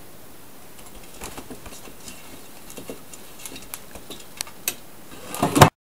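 A kitten's claws scratching and clicking on a wooden sword as it climbs, scattered scrapes growing more frequent, ending in a louder scuffle near the end that cuts off suddenly.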